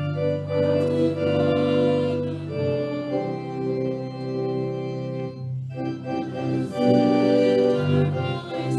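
Church organ playing hymn chords, with a short break between phrases about five and a half seconds in.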